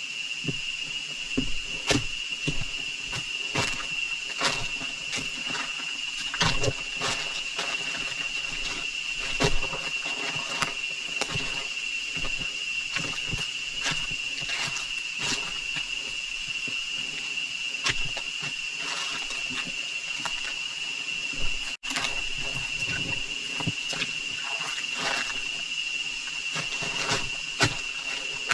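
A steady high-pitched drone of rainforest insects, with irregular crunching footsteps and crackles of leaves and twigs underfoot.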